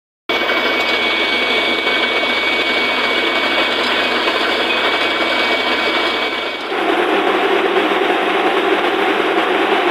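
Borewell drilling machinery running steadily and loudly. Its tone changes about two-thirds of the way in.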